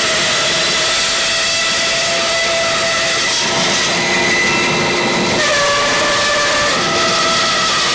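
Bandsaw cutting through a glued-up wood block: a loud, steady rush of blade and motor noise with several whining tones, which drop in pitch about five and a half seconds in. The cut had just bound the blade and is being tried again.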